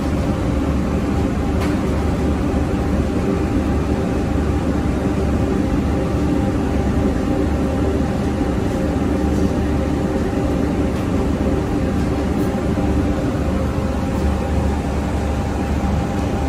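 Steady low mechanical drone with a faint hum, the constant running of a commercial kitchen's ventilation and equipment.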